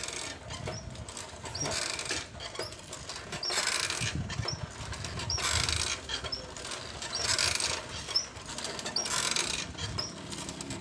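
Bicycle being ridden: a rhythmic swishing that swells about every two seconds, with small repeated squeaks from the bicycle's moving parts.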